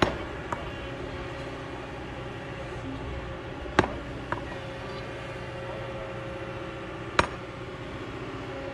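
Kobelco excavator's engine running steadily as it digs a rocky hillside, with sharp metallic clinks of metal striking stone, the loudest about four and seven seconds in.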